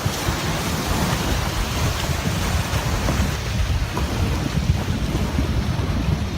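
Mountain river in flood, its water rushing past with a steady deep rumble.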